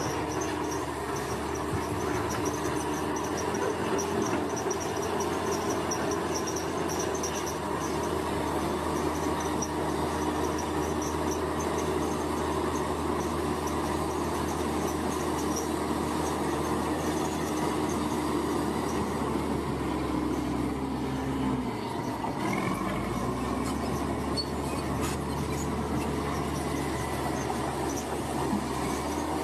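Komatsu bulldozer's diesel engine running steadily under load as the machine pushes earth, with a brief dip in the engine note a little over twenty seconds in.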